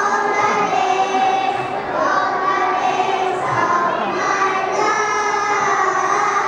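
A group of young children singing together in unison, with long held notes between short breaks.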